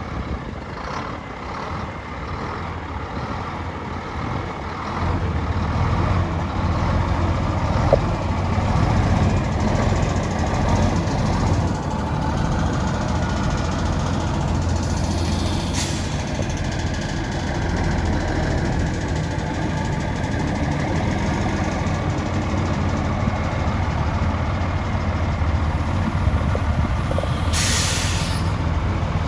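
Mack diesel engine of a 1973 Mack grain truck idling steadily. A short hiss of air comes about halfway through, and a longer, roughly one-second hiss from the truck's air system comes near the end.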